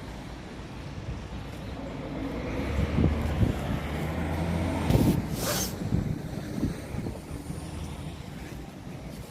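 A heavy diesel vehicle runs close by, its engine hum building over a few seconds. A short sharp air-brake hiss comes about five and a half seconds in, and the sound then eases off.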